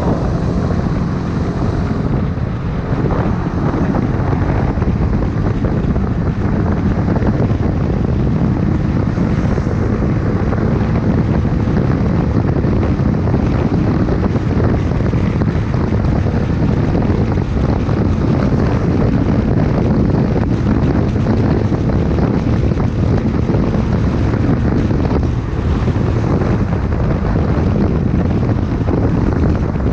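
Honda CBX 250 Twister motorcycle's single-cylinder engine running steadily, with heavy wind noise on the microphone.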